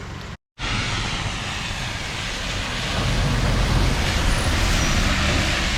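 A vehicle crossing floodwater on a road: a steady rush of water and spray over a low engine rumble that grows louder about halfway through. There is a brief dropout to silence just under a second in.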